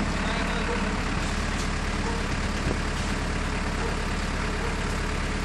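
A large truck's diesel engine idling steadily close by, a constant low hum.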